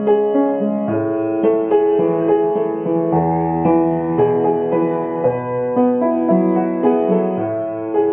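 Background music: a slow, gentle piano piece, notes struck one after another over sustained lower notes.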